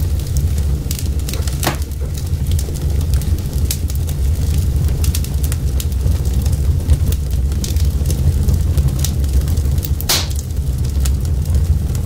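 Wood fire burning: a steady low rumble of flames with scattered crackles and snaps, and two louder pops, one near the start and one near the end.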